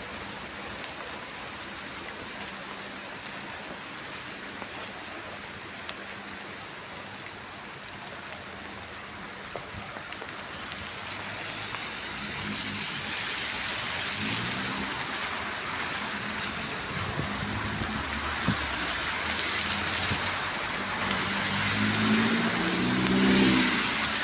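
Steady rain falling. From about halfway through, a motor vehicle's running sound comes in and grows louder toward the end.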